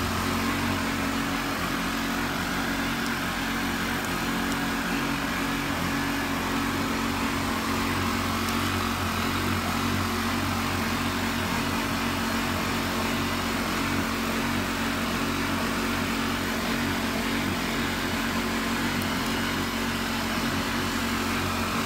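Small engine running steadily at a constant speed, an even, unbroken drone.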